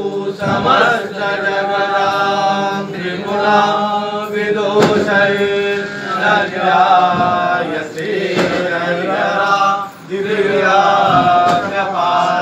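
Worshippers chanting a Hindu devotional prayer together, voices holding long sung notes. A sharp strike cuts through about every three to four seconds.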